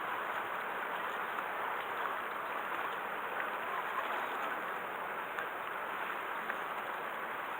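Steady rushing, splashing water noise with no distinct events.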